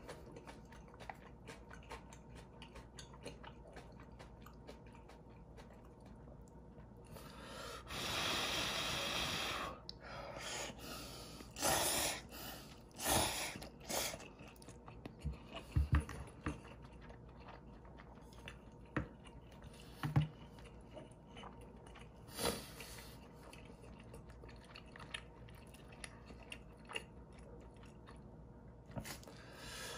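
Close-up eating sounds of instant ramen noodles and dumplings: wet chewing, a long slurp of noodles about eight seconds in, and a series of short slurps and clicks of the chopsticks and metal spoon against the plastic bowl.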